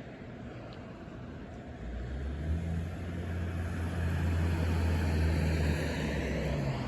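A motor vehicle drives close by: a low engine hum comes in about two seconds in and grows louder along with tyre noise, then eases a little near the end.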